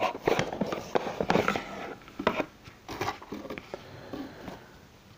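Small cardboard box being opened by hand: irregular rustles, crinkles and taps of cardboard flaps and a plastic wrapper as the contents are pulled out, thinning out over the last couple of seconds.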